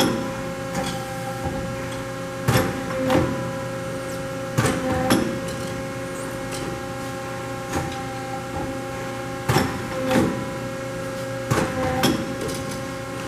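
Chiyoda SP-20 CNC tube bender running: a steady machine hum with several pitched tones, broken four times by a pair of clunks about half a second apart as the machine moves through its cycle.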